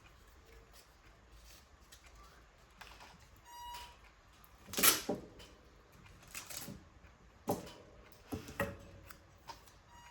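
Paper and craft tools being handled: a series of short rustles, taps and clicks, the loudest about five seconds in, with a brief squeak a little before it.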